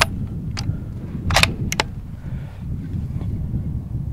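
Sharp metallic clicks and clacks of a scoped .308 Winchester rifle being handled and readied to fire: one click at the start, another about half a second later, then a louder pair about a second and a half in, over a steady low rumble.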